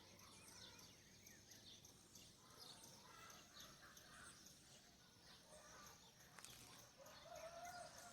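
Faint chorus of many birds chirping and calling: lots of short high chirps, with a lower warbling call, the loudest sound, near the end.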